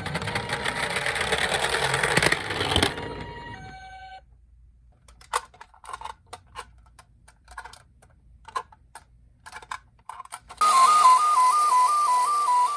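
A loud noisy rush for about three seconds, then scattered light clicks and taps. About ten seconds in, a toy ambulance's electronic two-tone siren starts: a high and a low note alternating about twice a second, drifting slowly lower.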